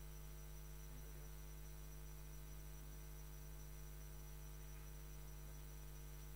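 Near silence apart from a steady electrical hum with a faint hiss.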